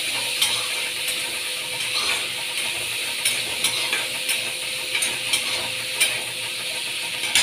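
Dried fish (shutki) sizzling as it fries in oil in a steel wok, with a spatula stirring it and clicking and scraping against the pan every half second to second. A faint steady hum runs underneath.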